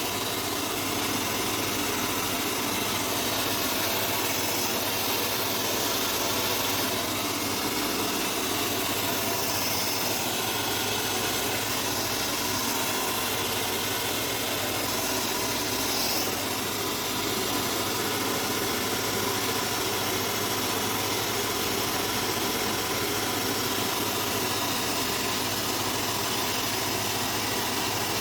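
A small electric motor running steadily, with an even rushing hiss and no break.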